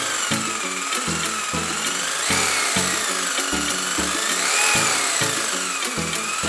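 A small power tool whining, its pitch slowly rising and falling as the load changes, over background music with a steady beat.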